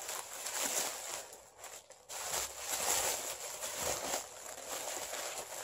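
Thin white wrapping crinkling and rustling as a plate is unwrapped by hand, in uneven handfuls with a short lull about two seconds in.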